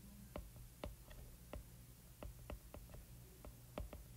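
Faint, irregular clicks of a stylus tip tapping on an iPad's glass screen while handwriting, about three taps a second.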